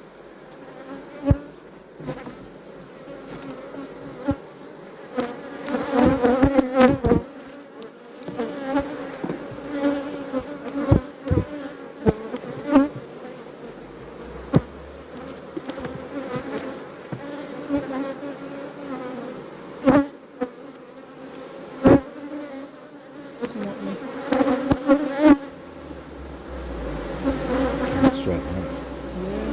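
Honey bees buzzing in a steady hum around an open, freshly split hive. Sharp knocks and clicks come every few seconds as the wooden hive parts are handled.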